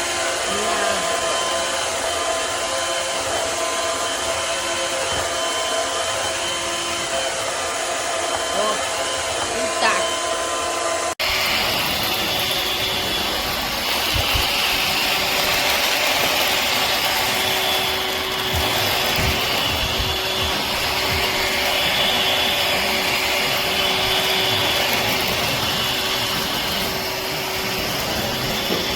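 Shark Navigator Freestyle cordless stick vacuum motor running with a steady whir and whine, which the owner says gives next to no suction. The whine's pitch changes abruptly about eleven seconds in.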